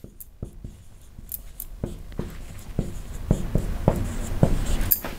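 Marker pen writing on a whiteboard: a string of short, irregular taps and strokes.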